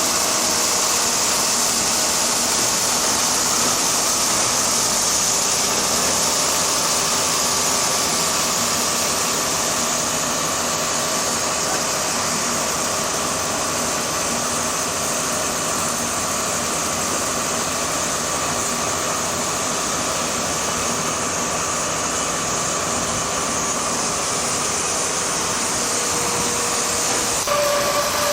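A 75 kW diamond wire saw running steadily as it cuts stone: a constant mechanical whine with a strong hiss, whose tone changes slightly near the end.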